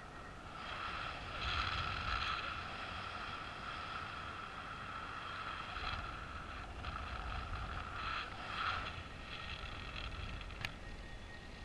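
Paraglider in flight: wind buffeting the microphone as an uneven low rumble, with a high whistling tone that swells and fades. A single sharp click near the end.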